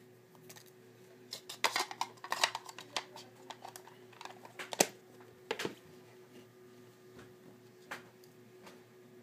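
Cardboard box and plastic packaging of an iPod being handled and opened: scattered crinkles, taps and clicks, busiest in the first half and thinning out later, over a faint steady hum.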